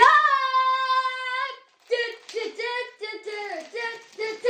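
A high voice singing: one long held note that swoops up at the start and lasts about a second and a half, then a quick string of short sung notes.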